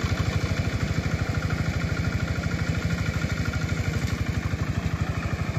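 Self-propelled reaper binder's engine running steadily under load as the machine cuts standing grain, with a fast, even pulse.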